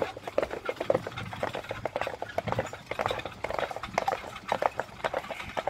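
Hoofbeats of a pair of carriage horses trotting on a dirt lane: a quick, uneven patter of strikes as the two horses' footfalls overlap.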